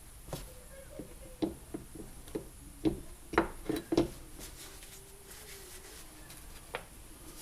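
A run of light knocks and clicks as parts and tools are handled during a trolling motor rebuild: about ten sharp taps in the first four seconds, a few with a short dull ring, then one more near the end.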